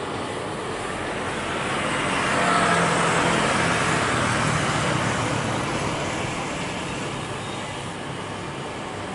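Airbus A320-216's CFM56 jet engines at takeoff thrust during the takeoff roll. It is a broad roar that swells as the aircraft passes, peaks about three seconds in, then slowly fades as the aircraft rotates.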